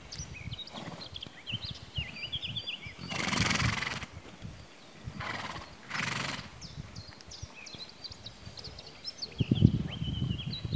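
Grazing horses, one blowing hard through its nostrils in two long, noisy snorts about three and six seconds in, over light birdsong. Near the end, close-by crunching of a horse tearing and chewing grass.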